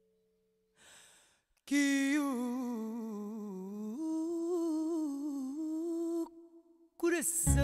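Solo singing voice in a song: after a short breath, one long hummed note held with a wavering vibrato for about four and a half seconds, stepping up in pitch about halfway through. The accompaniment comes back in right at the end.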